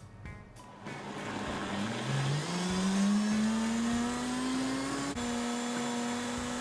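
Countertop blender motor starting up and climbing steadily in pitch for a few seconds. About five seconds in there is a click, and it then runs at a steady speed.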